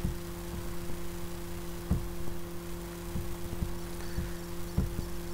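A computer mouse clicking about six times at uneven intervals over a steady low hum.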